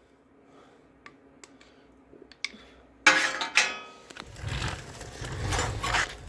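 Small metal carburetor parts being handled: a few light clicks, then a sudden louder scrape and clatter about three seconds in, followed by rumbling handling noise.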